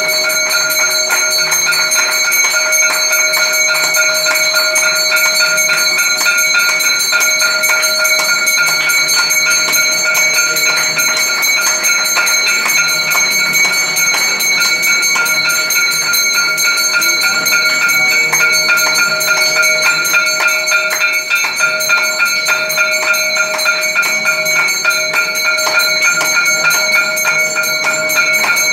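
Temple bells rung rapidly and without pause for the aarti, several bell tones ringing on together over a dense jingling clatter.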